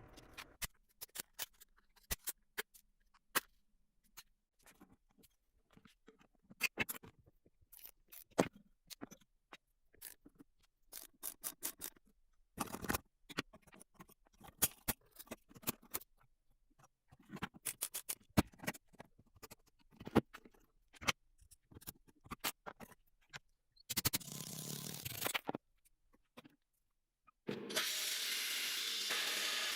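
Hand work on an old rusty alarm clock's small metal parts: scattered clicks, taps and scraping. Near the end a steady rushing noise starts and keeps going.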